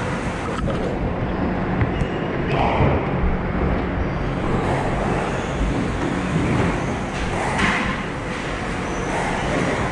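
Steady low hum and noise of a squash hall, with a few scattered thuds and knocks.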